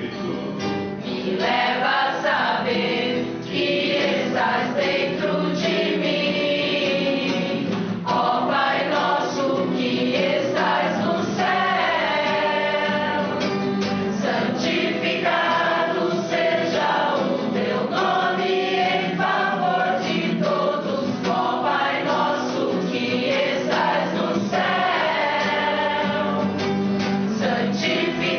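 Small mixed choir of men and women singing a devotional song in Portuguese, accompanied by an acoustic guitar.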